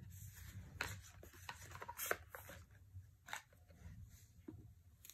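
Tarot cards being handled and flipped through by hand: faint, irregular flicks and slides of card stock.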